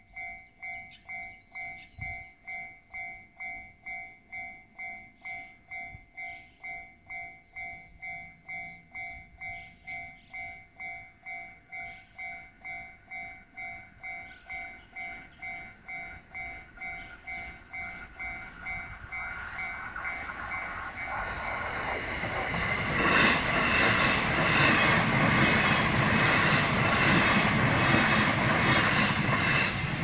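Electronic level-crossing alarm ringing in a steady repeated two-tone ding. Past the middle a train's running noise swells in and, for the last several seconds, is the loudest sound, drowning out the bell.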